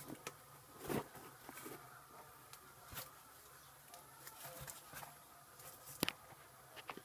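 Scattered light taps and bumps from a handheld camera being moved and handled, the sharpest about a second in and about six seconds in, over a faint, steady high background hum.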